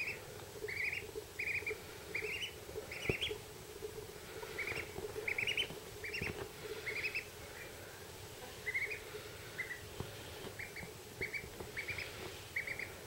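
Duckling peeping: short, high chirps in quick runs of two to four, repeated every second or so.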